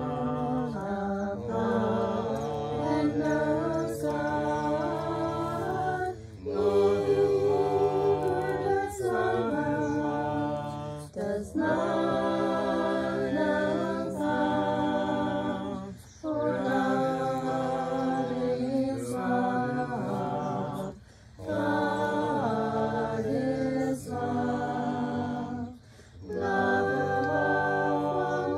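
Several voices singing a worship song together without instruments, in phrases of about five seconds with short breaks between them.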